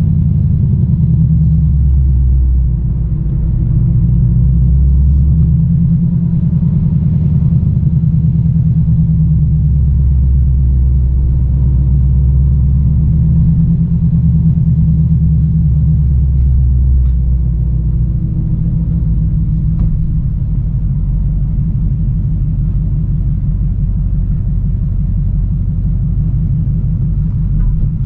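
V8 car engine and exhaust running while driving, the engine note rising and falling with the throttle, then settling into a steady low burble with distinct firing pulses in the second half.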